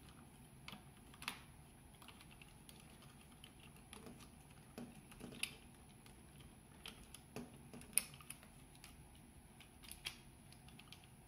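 Faint, irregular clicks and taps of small plastic toy parts being handled, as the jointed fingers of a toy robot hand are posed around a pen; the sharpest click comes about eight seconds in.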